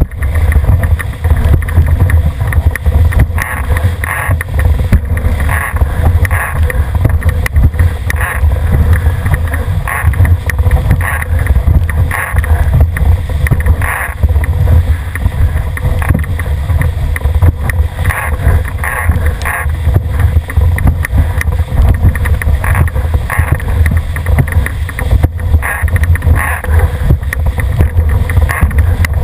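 Wind buffeting the camera microphone with a heavy rumble, over water rushing along the hull of a Cherub dinghy sailing fast downwind, the hull slapping through the chop about once a second.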